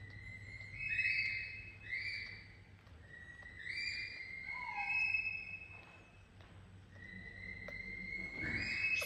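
Baby monkey crying with high, whistle-like calls: several short cries in the first half, then a longer drawn-out cry near the end.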